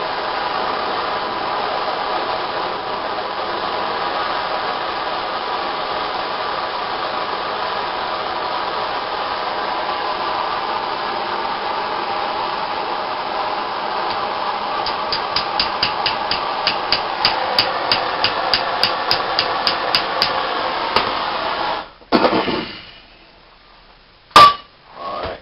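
A steady blowing hiss from a heating tool used to solder a cable lug, which cuts off suddenly near the end. Over its last seconds come rapid metallic ticks, about four a second, and after it stops there is one sharp knock of metal.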